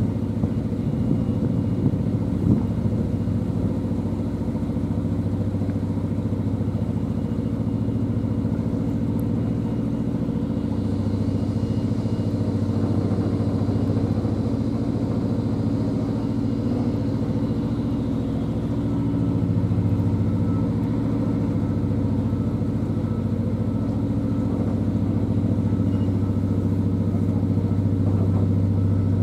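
Narrow boat's inboard engine running steadily at low cruising revs, a constant low drone that swells slightly now and then.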